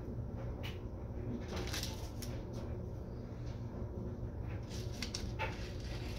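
Kitchen room tone: a steady low hum with scattered faint clicks and rustles.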